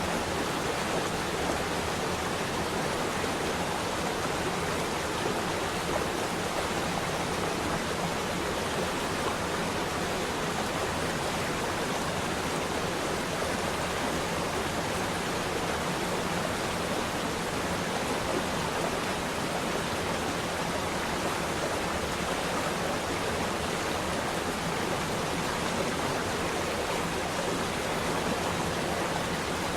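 Water flowing and rushing steadily, an even, unbroken wash of noise.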